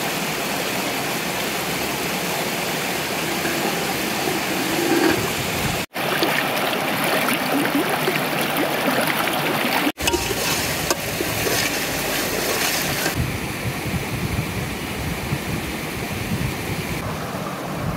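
Shallow river running over stones, a steady rush of water that drops out abruptly twice, about six and ten seconds in.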